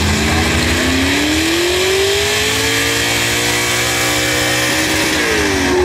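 Pickup truck's engine at full throttle under heavy load while pulling a weight-transfer sled, its pitch climbing over the first two seconds and then holding steady. The pitch dips near the end.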